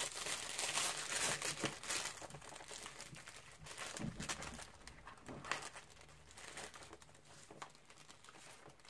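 Packaging crinkling and rustling as an item is unwrapped by hand, dense for the first two or three seconds, then thinning to scattered small crackles and clicks that fade away.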